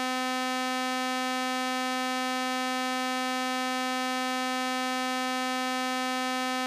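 Cessna 182's stall warning horn sounding one steady, unbroken tone: the wing is close to the stall as the airplane is pulled hard in a banked turn toward an accelerated stall.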